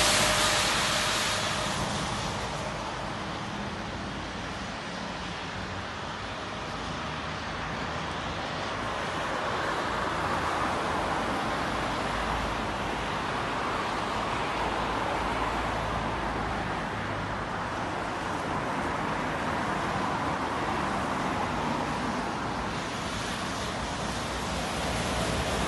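Road traffic on a wet main road: a steady hiss of tyres and engines from passing cars and double-decker buses. It fades over the first couple of seconds as a vehicle moves away, swells again midway as more traffic goes by, and rises near the end.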